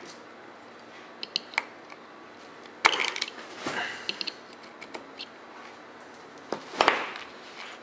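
Pliers clicking and scraping on a small retaining pin in a plastic rifle stock's forend, with knocks from the stock being handled; the two loudest clicks come about three seconds in and near the end.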